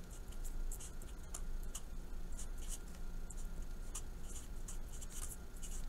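Felt-tip marker writing on paper: a run of short, high scratching strokes in quick irregular bursts as words are written out.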